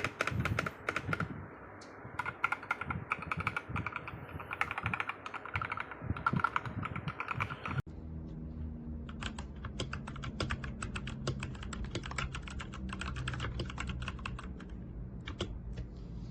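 Rapid typing on a Redragon K617 Fizz 60% compact mechanical keyboard, with fast irregular key clacks. About eight seconds in the sound cuts to a second typing take, with a steady low hum beneath the keys.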